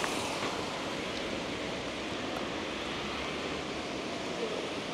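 Steady outdoor street ambience: an even hiss of background noise with no distinct events.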